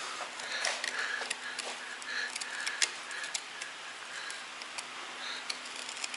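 Scattered light clicks and taps of small metal parts and tools being handled during work on a motor assembly, over a faint steady hum.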